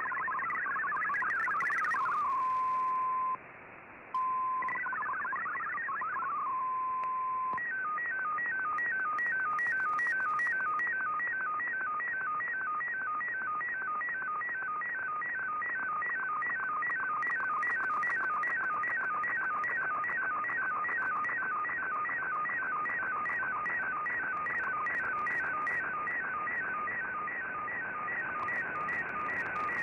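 Shortwave Radiogram digital signal heard through an Icom IC-R8600 receiver over shortwave hiss. It opens with warbling MFSK data tones and a steady single tone, twice over, with a brief dropout between. From about eight seconds in comes an MFSK colour picture transmission: a fast, evenly repeating pattern of three tones, one line of the image after another.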